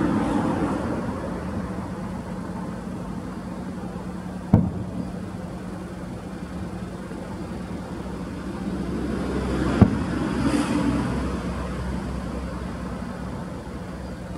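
Outdoor ambience dominated by a steady low engine hum under a wash of wind noise, swelling a little near ten seconds in. Sharp clicks come about four and a half seconds in and again near ten seconds.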